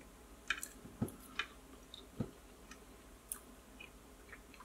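Someone eating a bite of freshly cooked fish: quiet chewing with a handful of light clicks and small taps, like utensils on a plate.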